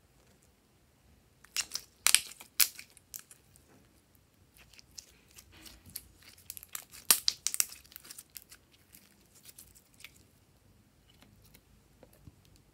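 Glossy purple glitter slime being stretched, pulled and squeezed by hand, making sticky crackles and small pops. The clicks come in dense clusters, loudest about two seconds in and again around seven seconds.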